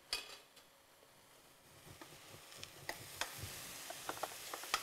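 Diced eggplant frying faintly in hot oil in a pan, with light clicks of a utensil stirring it; the sizzle comes in about two seconds in, after a near-silent start. The salted eggplant is sweating out its moisture at fairly high heat.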